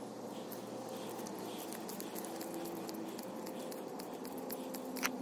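Soft crackling and ticking of thread tape being handled and wrapped onto a white PVC threaded fitting, with one sharper click near the end.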